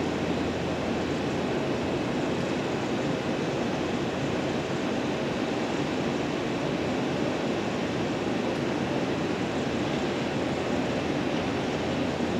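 Steady rushing outdoor noise, like wind on the microphone, with a low hum underneath; it holds level throughout with no distinct events.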